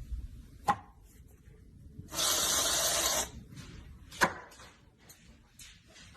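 A sharp click, then a steady hiss lasting about a second, then another sharp click.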